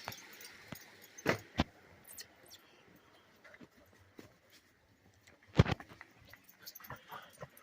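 A few scattered knocks, like footsteps or something being handled: two short ones about a second and a half in, and a louder one about five and a half seconds in, with faint ticks in between.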